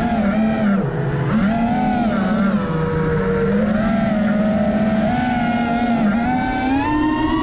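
Racing quadcopter's brushless motors and propellers whining, the pitch wavering with the throttle and rising near the end.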